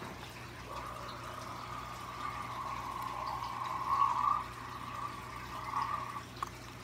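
Breath blown steadily by mouth into a lump of slime, inflating a large slime bubble: one long breathy blowing sound lasting about five seconds and loudest past the middle, followed by a short click near the end.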